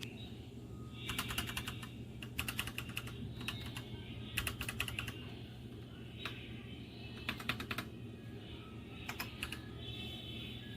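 Royal Kludge RK84 mechanical keyboard being typed on: short runs of quick key clicks with pauses between them, over a steady low hum.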